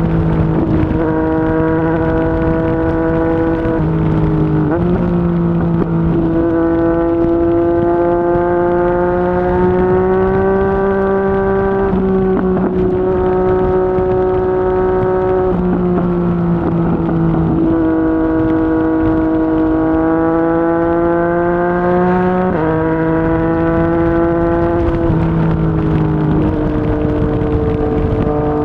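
Yamaha MT-09's three-cylinder engine through a Yoshimura R55 slip-on exhaust while riding, its pitch holding for a few seconds at a time and then stepping or sliding up and down as the throttle and gears change, over a low rush of wind and road noise.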